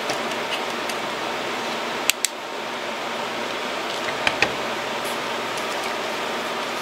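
Sharp clicks from hard plastic being handled: a freeskate with a clip-on flashlight is turned over in the hands, with two clicks close together about two seconds in and two more just after four seconds. They sit over a steady hiss like a small fan.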